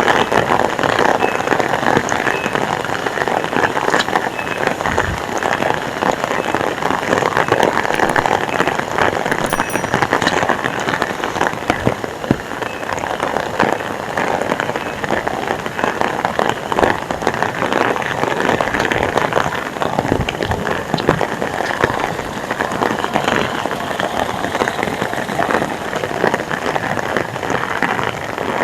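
Heavy rain falling steadily: a dense hiss of water with many separate drops striking close by.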